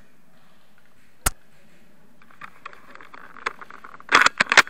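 A single sharp crack about a second in, typical of a spring-powered airsoft Lee Enfield bolt-action rifle firing, then rustling and a quick cluster of clicks and knocks near the end as the rifle is handled.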